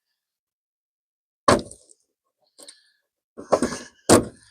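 Handling knocks and rustling as solar cables are pushed through holes drilled in a wall: a sharp knock about a second and a half in, a faint click, then a quick cluster of knocks and rustles near the end.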